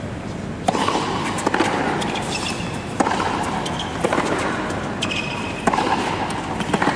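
Tennis rally on a hard court: a string of sharp racket strikes and ball bounces about a second apart, starting with the serve, over a low steady background.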